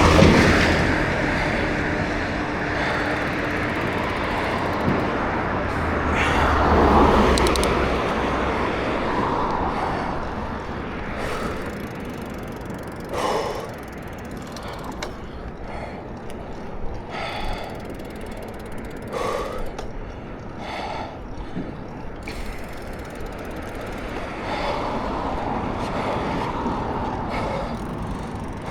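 Mountain bike being ridden on a city street: two swells of passing traffic and wind rumble in the first eight seconds, then the bike's drivetrain and freewheel clicking and rattling in scattered short bursts.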